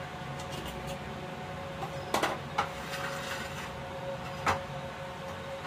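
A knife cutting a fried bread pakoda on a steel plate, with a few sharp knocks and clatters of the blade and plates, the loudest about two seconds in and again about four and a half seconds in, over a steady faint hum.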